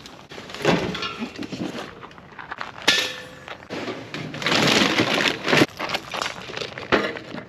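Camping gear being handled: a fabric folding camp chair, then a round metal portable fire pit dragged out from among other gear and carried, with a few sharp knocks and a louder stretch of scraping and rustling about halfway through.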